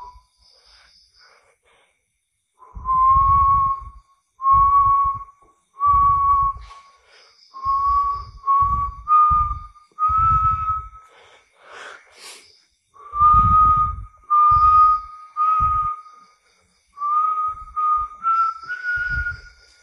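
A person whistling a string of about a dozen held notes, each around a second long with short breaks between them, creeping slowly upward in pitch, with breath noise under each note.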